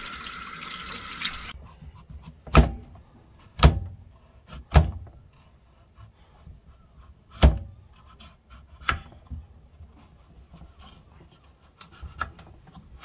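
Tap water running into a stainless-steel sink, cut off abruptly about a second and a half in. Then a knife peeling a pumpkin on a wooden cutting board: light scraping with about five sharp knocks of knife and pumpkin on the board.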